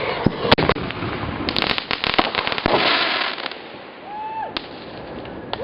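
Fireworks crackling and popping: a rapid string of sharp reports over the first three and a half seconds, then dying down.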